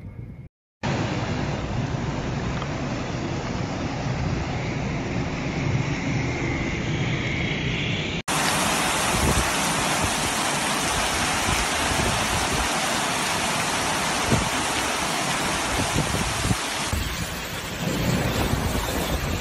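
Heavy rain and floodwater rushing through a street, a loud, steady noise. Near the end, a car wading through a flooded street, its bow wave splashing.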